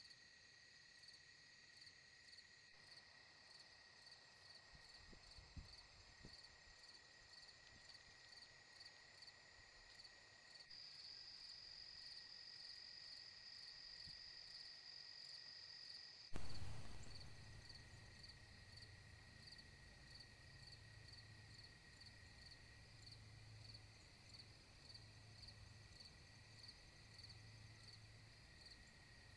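Faint night chorus of crickets and other insects, a steady high trilling with rhythmic pulsing chirps. A little past halfway there is a single sudden loud thump, after which a low pulsing hum joins in.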